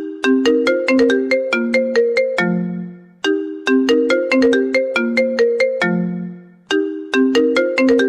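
Mobile phone ringtone: a short melody of quick notes ending on a held low note that fades, looping about every three and a half seconds.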